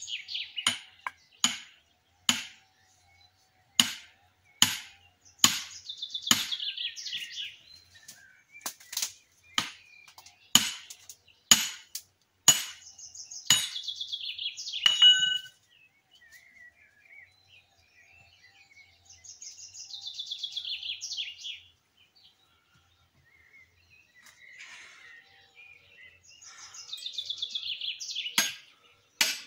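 Sharp, repeated blows on firewood being split, about one or two a second for the first fifteen seconds, then a single blow near the end. A songbird sings repeated high trills between and after the blows.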